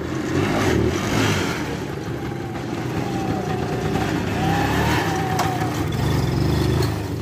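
Engine of a three-wheeled Tula Muravey cargo scooter running as it is ridden slowly past.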